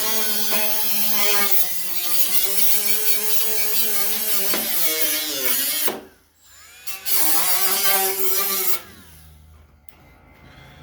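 Angle grinder running against sheet steel, its motor whine dipping in pitch as it bears down. It stops about six seconds in, then runs again for about two seconds, grinding the panel to bare metal for tack welding.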